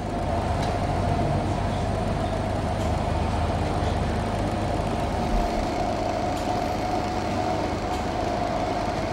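Steady machine hum from the Cloaca digestion machine's pumps and stirrer motors, a constant noise with a steady mid-pitched tone and a low hum underneath.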